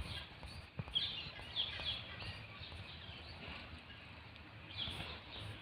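Faint background bird chirps: a few short, high, downward-gliding calls spaced through a quiet room tone, with a small click about a second in.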